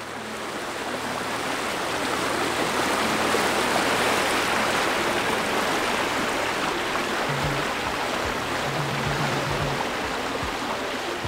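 Steady rush of water, fading in at the start. Music begins under it about seven seconds in with a few low notes.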